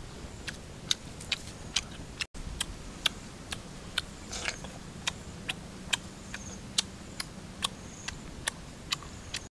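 Sharp, evenly spaced clicks repeating about two times a second over a faint steady low hum.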